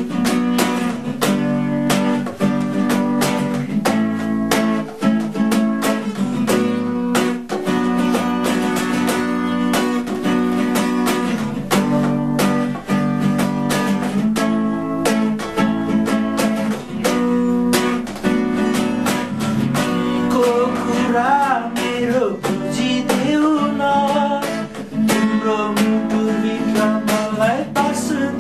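Acoustic guitar strummed steadily through changing chords. From about two-thirds of the way in, a wavering wordless vocal line rises over it.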